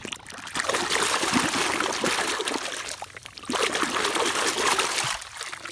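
Water splashing and sloshing as a hand swishes and scrubs a plastic toy truck under the surface to wash the mud off, in two long bouts with a short lull a little after three seconds in.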